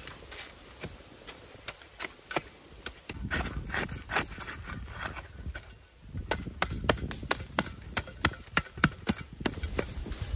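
A small hand shovel chopping and scraping into stony soil: a run of sharp strikes that come sparsely at first, then fast and hard in the second half.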